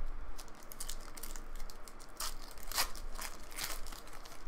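Foil wrapper of a trading-card pack crinkling as it is torn open by hand: a close run of sharp crackles, with a few louder ones in the second half.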